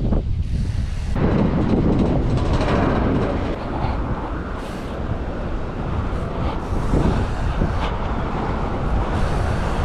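Wind buffeting the microphone with road rumble while riding a bicycle on pavement, a loud steady rush that swells and dips.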